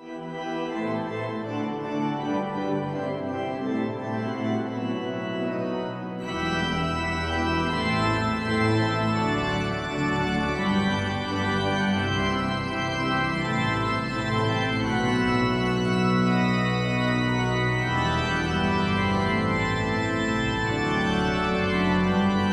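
Instrumental background music of held chords, with a deeper bass layer joining about six seconds in.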